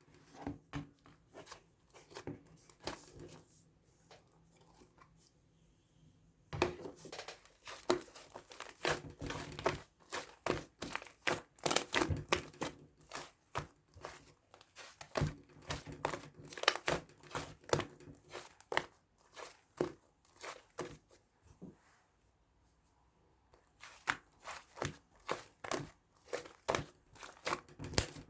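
Crinkling and tearing handling noise: dense runs of sharp crackles, with two quieter spells, one a few seconds in and one about three-quarters of the way through.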